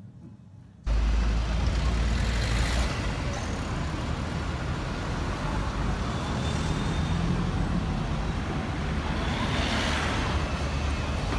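Busy city street traffic: cars and a double-decker bus running past, a steady roar with a deep rumble underneath. It starts abruptly about a second in.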